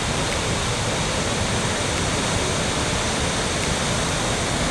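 Rushing water of a creek cascade or small waterfall: a steady, even rush.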